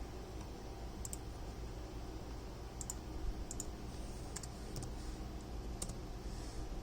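Scattered light clicks at a computer, some in quick pairs, over a low steady hum.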